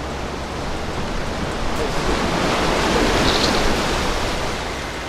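Steady rushing of wind and surf, swelling for a moment about halfway through.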